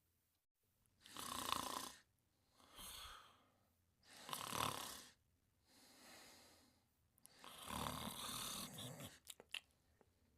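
Cartoon character snoring: three loud snores, each followed by a softer breath.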